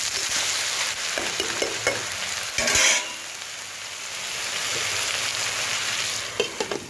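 Chopped colocasia stems sizzling in hot oil in a pan while being stirred with a spatula. There is a brief louder rattle about three seconds in, and a few clicks near the end as a glass lid is set on the pan.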